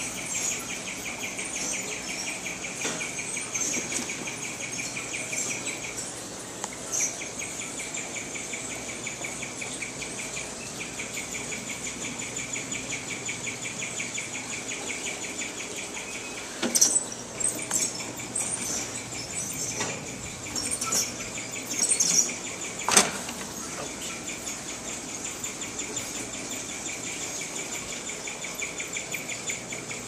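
Guinea pig chirping: a rapid, steady run of high chirps repeated many times a second, going on with only brief breaks. A few sharp knocks come in about two-thirds of the way through.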